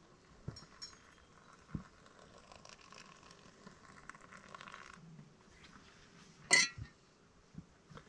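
Hot water poured in a thin stream from a small metal camping kettle into a pour-over coffee dripper on a mug, running for about four and a half seconds. Then the kettle is set down on rock with one loud metal clink about six and a half seconds in.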